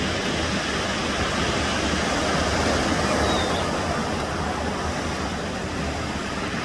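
Steady wash of sea surf mixed with wind buffeting the microphone.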